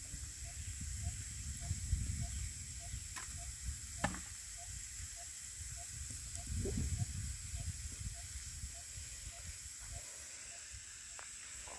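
Green bamboo tubes packed with chicken roasting over a wood fire, hissing steadily as steam escapes, with a few sharp crackles and a low rumble that comes and goes.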